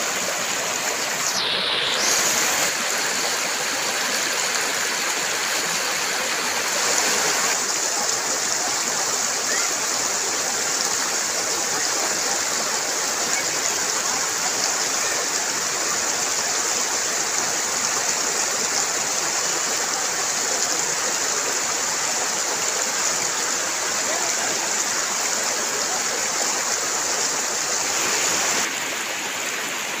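Shallow river rushing over rocks and stones: a steady rush of white water, easing slightly near the end.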